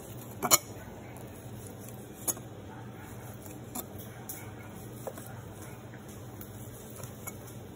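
Chef's knife chopping smoked sausage on a wooden cutting board: a few sharp, irregular taps of the blade on the wood, the loudest about half a second in, over a faint steady low hum.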